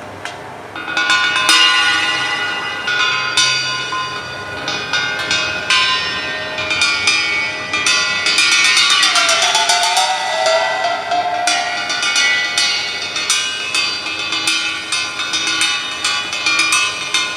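Live foley and percussion playing: ringing, bell-like metal tones over quick, dense strikes, starting about a second in, with a wavering pitch glide near the middle.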